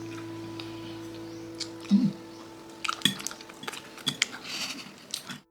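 A dull knock about two seconds in, then a run of light clicks and clinks, like tableware or items being handled at a table. Everything cuts off abruptly near the end.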